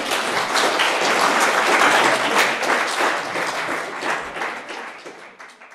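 Audience applauding: the clapping swells within the first second, peaks around two seconds in, then dies away toward the end.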